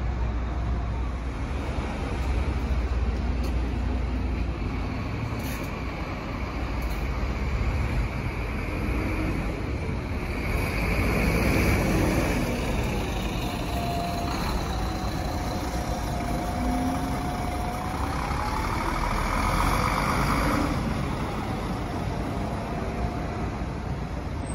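Vehicles running, with a steady rumble and noise. About halfway through, a motor whine comes in that rises and falls in pitch for several seconds.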